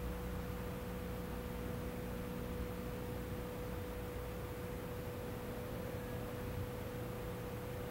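A faint, steady, single pure tone near 500 Hz, held without change, over a low hum and an even background hiss.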